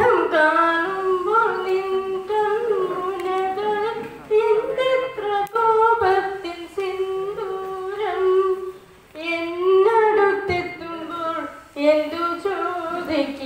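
A woman singing unaccompanied into a handheld microphone: a slow melodic line of long held notes with slides and ornaments, with brief breaks for breath between phrases.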